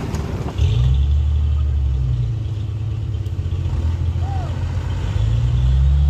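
Heavy truck diesel engine running under throttle: a loud low drone that starts suddenly about half a second in and builds a little near the end.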